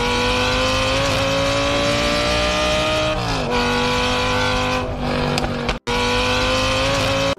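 Car engine held at high revs, its pitch creeping slowly upward, then dropping and levelling off about three seconds in, with a brief break near six seconds.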